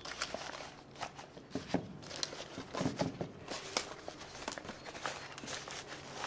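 Banana leaves rustling and crinkling as they are folded over and pressed down by hand: an uneven run of soft crackles, busiest around the middle.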